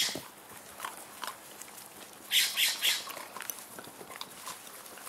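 Puppies play-fighting, with three quick, harsh, high-pitched yips or squeals in a row a little over two seconds in, amid faint scuffling.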